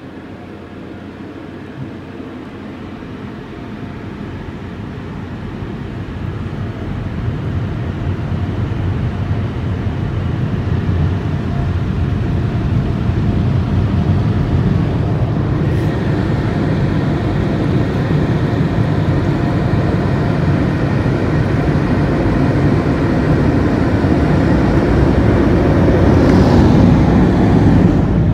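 Air dryer blowers of a WashWorld RAZOR touch-free car wash running with a steady rushing noise that grows gradually louder, the drying stage at the end of the wash.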